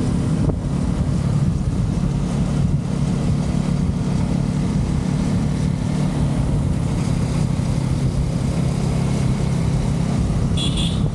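Yamaha R15 V3 single-cylinder motorcycle engine running steadily while cruising at a constant speed, with road noise. Near the end a brief high double chirp sounds.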